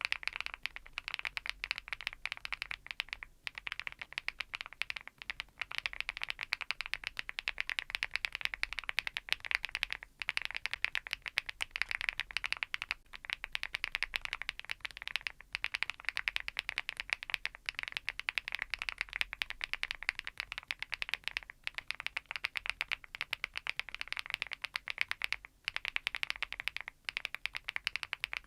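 Fast, continuous typing on an Archon IX Pro full-aluminium tenkeyless mechanical keyboard: a dense stream of key clicks with a few brief pauses.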